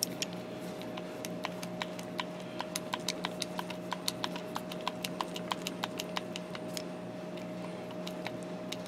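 Klutch hand-pumped hydraulic terminal crimper pumped to crimp a lug onto 2/0 battery cable: a run of sharp clicks, about three a second at their densest, stopping about six seconds in. A steady hum runs underneath.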